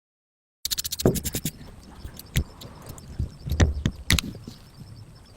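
Restoration work on a rusty tractor: after a moment of silence, a quick run of about eight sharp clicks, then scattered knocks and scraping sounds.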